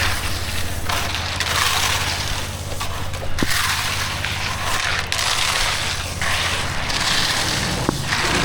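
Tools scraping and pushing through wet concrete in rough, gritty strokes every second or two, over the steady hum of an engine running.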